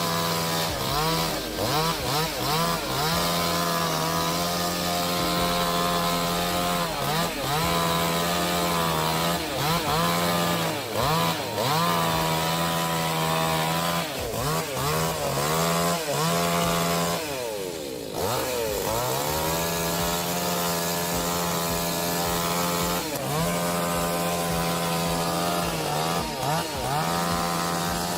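Two-stroke chainsaw running at full throttle in a cut, its pitch sagging every second or two as the chain loads up in the wood and then recovering. About two-thirds of the way in the engine drops well down and winds back up.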